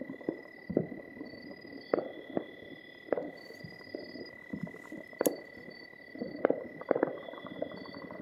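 Distant fireworks, firecrackers and celebratory gunshots going off irregularly, roughly one bang a second, the sharpest crack about five seconds in, over a steady high whine.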